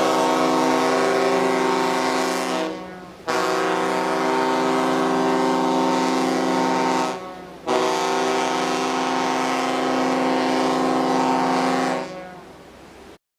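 Ship's horn sounding three long blasts of steady pitch, each about four seconds, with short gaps between them; the last fades away with a lingering echo near the end.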